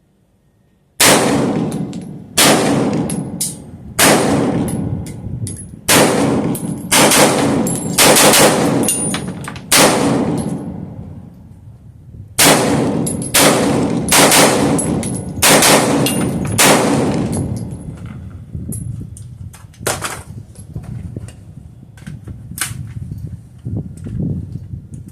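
Rifle fired in two quick strings of shots, about eight and then six, roughly one shot a second, each report trailing off in a long echo. After these come a few fainter cracks and clicks.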